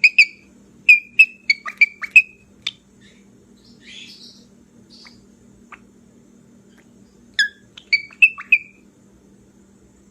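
Grey cockatiel squeaking: a quick run of about nine short, sharp, high squeaks in the first three seconds, a few soft raspy sounds around four seconds in, then another run of five squeaks about seven and a half seconds in.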